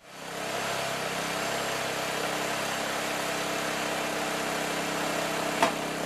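BigFoot BF300 baler's engine running steadily under hydraulic load as the plunger compresses plastic in the chamber. One sharp click about five and a half seconds in is a baler ear snapping into place, the sign that the plunger has fully descended.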